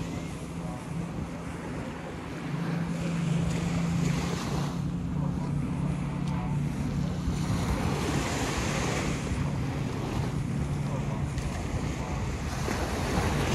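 Small waves washing up and breaking on a sandy shore, swelling every few seconds, with wind buffeting the microphone and a steady low hum underneath.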